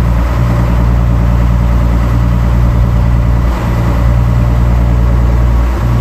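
Boat engine running steadily under way, a loud low drone, with two brief dips in the drone.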